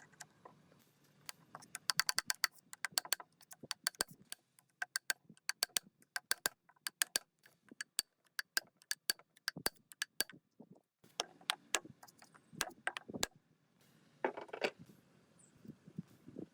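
Irregular series of sharp metallic clicks and taps, several ringing briefly, with a short pause about ten seconds in and a brief scraping rattle near the end: hand tools knocking against metal parts.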